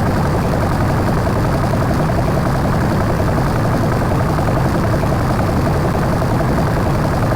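Loud, steady engine-like rumbling noise that holds an even level, with a faint fast flutter in it.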